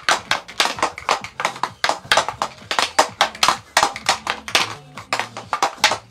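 Hockey stick blade rapidly clacking a puck from side to side in a figure-eight stickhandling drill, about six clacks a second, over faint background music.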